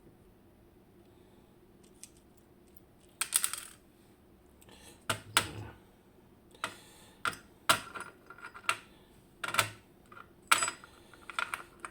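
Metal lock parts and tools clicking and clinking as an Abloy Exec disc-detainer lock is taken apart: a short cluster of clinks about three seconds in, then a run of separate sharp metallic clicks.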